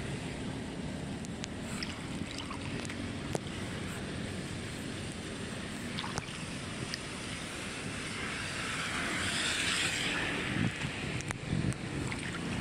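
Floodwater swirling and gurgling at a clogged roadside culvert inlet, with splashing as a gloved hand pulls trash out of the water; the splashing swells louder about nine to eleven seconds in.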